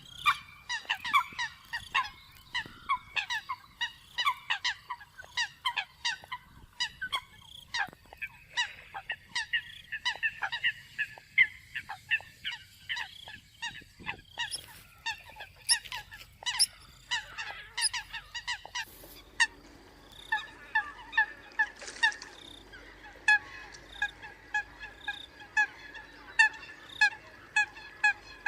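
Eurasian coots calling: many short, sharp honking calls overlapping at first, then settling a little over two thirds in into a regular, even run of repeated calls.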